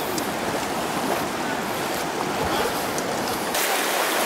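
Shallow river water rushing over a rocky riffle, a steady wash of flowing water that turns abruptly thinner and more hissy near the end.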